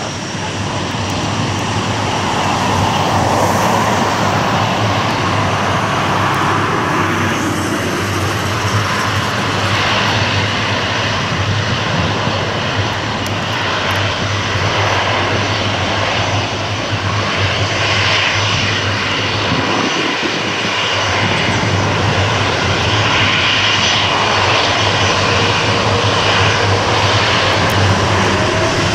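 Boeing 777-300ER's twin GE90-115B turbofan engines running at taxi power as the airliner rolls slowly and turns, a steady loud jet engine noise.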